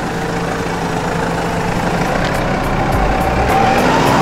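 Farm tractor engine running as the tractor pulls a seed drill and drives closer, growing louder over the last second or so.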